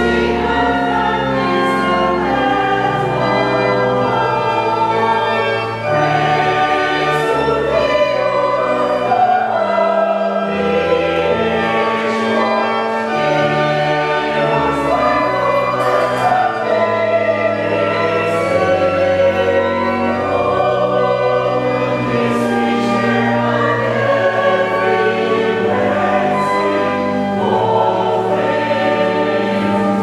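Mixed church choir of men and women singing, with organ accompaniment sustaining low notes beneath the voices.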